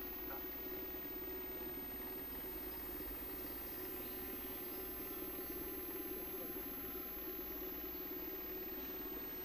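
A steady mechanical hum with a fast, even flutter, unchanged in level throughout.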